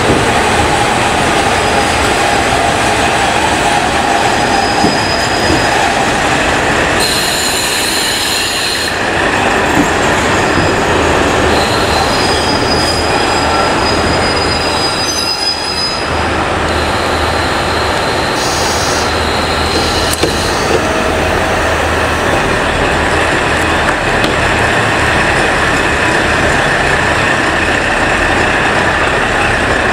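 KiHa 40-series diesel railcar pulling into a station platform, its diesel engine running and wheels rolling. High-pitched squeals come and go from about 5 to 20 seconds in as it slows to a stop.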